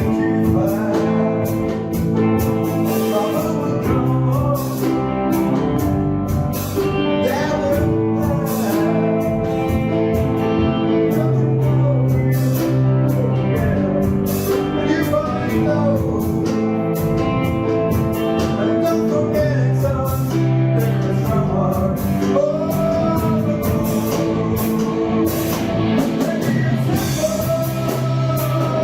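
A rock band playing a song at rehearsal, with a voice singing over guitar and a steady low bass line.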